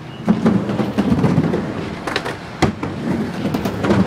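Skateboard wheels rolling on a mini ramp, a steady rumble, broken by several sharp clacks of the board hitting the ramp, the loudest about two and a half seconds in.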